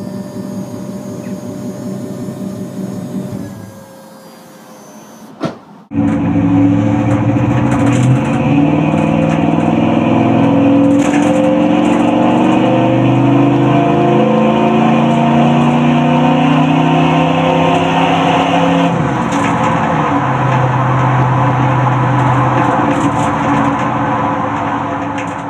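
Stock 5.7 L (350) Chevy small-block V8 of a 1999 C2500 with a single 3-inch Thrush welded muffler. It first runs steadily at the tailpipe, then, heard from inside a cupboard of the utility body, it pulls hard under acceleration, rising in pitch through several gear changes, and settles to a steadier, lower note about two-thirds of the way through.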